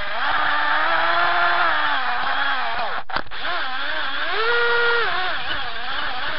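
Small electric motor of a 1:32 scale slot-car monster truck whining as it laps the track, its pitch rising and falling with the throttle. The sound cuts out briefly about three seconds in.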